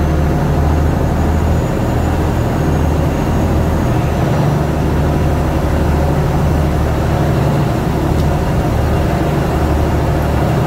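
Diesel engine of a Khlong Saen Saeb canal boat running at steady cruising power, heard from on board: a loud, even, deep rumble.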